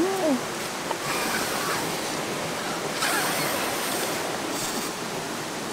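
A boy blowing on a smouldering cook fire to rekindle it: three breathy gusts over a steady rushing noise.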